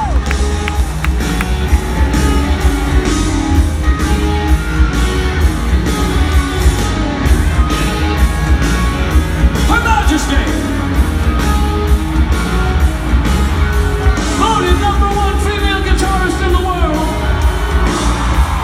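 Live rock band playing loud in a large hall: pounding drums and distorted electric guitars, with notes bending up and down in pitch and some singing.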